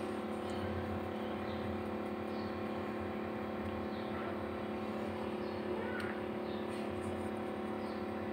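Steady motor hum made of several even tones, with faint small water sounds of fingers stirring raw macaroni in a pot of water.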